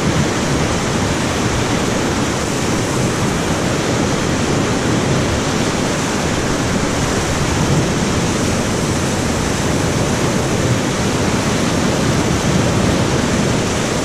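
Whitewater river rapids rushing loudly and steadily as an inflatable raft runs through them.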